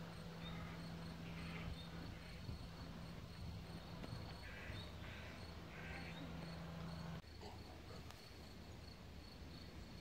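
Crickets chirping in a faint, fast, regular pulsing. A low steady hum underneath cuts off suddenly about seven seconds in.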